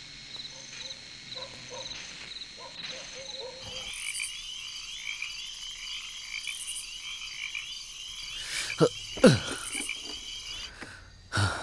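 Night-time chorus of frogs and crickets: steady pulsing chirps at first, then from about a third of the way in a dense layer of repeated trilling calls. Two loud downward-sliding calls stand out about three quarters of the way through.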